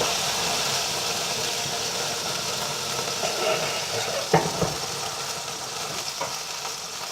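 Hamburger Helper beef pasta sizzling in a hot frying pan: a steady hiss that jumps up at the start and slowly dies down. A utensil knocks against the pan about four seconds in and again near six seconds.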